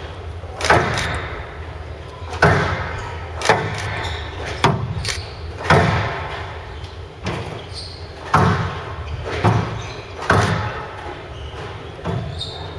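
Squash rally: sharp cracks of racket strikes and the ball hitting the court walls, about a dozen at roughly one a second, echoing in a large hall.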